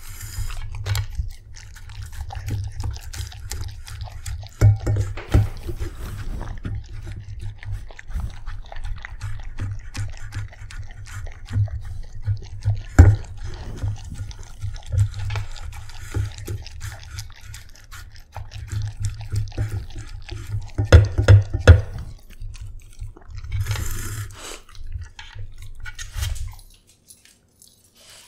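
A corgi–sheltie–beagle mix dog eating from a stainless steel bowl right at the microphone: wet chewing and licking, with irregular clicks and knocks. It stops abruptly near the end.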